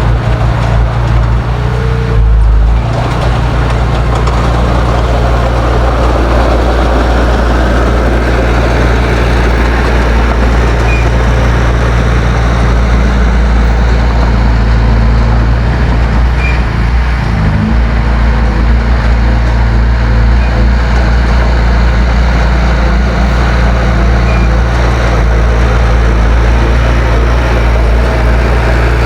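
Heavy diesel engine of earthmoving equipment running loud and steady, its note shifting briefly about two seconds in and again about seventeen seconds in.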